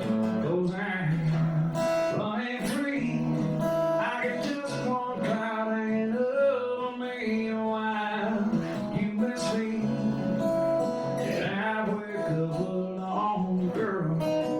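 Live song on a strummed acoustic guitar, with a man singing.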